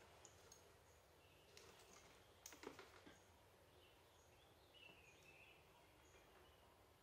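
Near silence: faint bird chirps in the background, with a few soft clicks of a small plastic jack plug being handled about a third of the way in.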